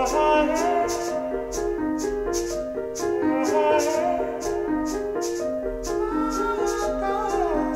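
Minimalist instrumental music: a repeating piano figure of short, evenly paced notes, with a higher melodic line that slides and bends in pitch above it, and a light high tick about three times a second.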